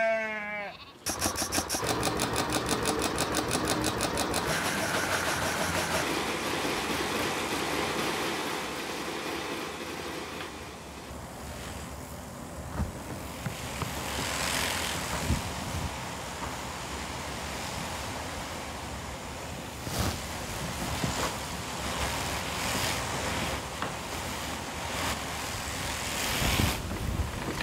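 A sheep bleats once, then a sheep-shearing machine handpiece cuts through fleece with a mechanical buzz. It pulses fast and regularly for the first few seconds, then settles into a steadier running sound with a few sharper knocks.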